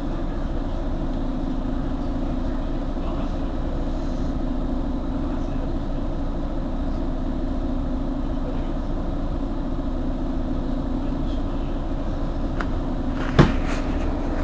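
Mercedes-Benz Citaro G C2 articulated bus engine idling steadily while the bus stands still. About a second before the end comes a single sharp knock.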